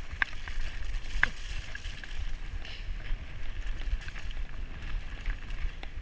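Mountain bike running down a rough dirt-and-grass track: a steady hiss of tyres rolling over the ground, with a couple of sharp rattling clicks from the bike over bumps. Wind rumbles on the microphone throughout.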